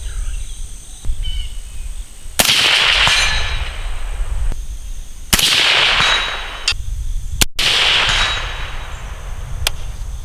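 Three shots from a suppressed AR-style rifle, about three seconds apart, each trailing off over a second or more.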